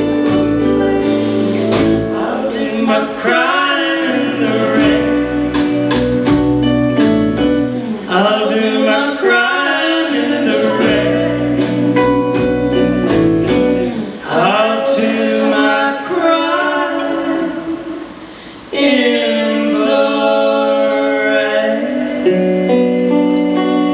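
Live band performance: singing over guitar-led accompaniment, with long held vocal notes. The music briefly drops away about 18 seconds in, then comes back in full.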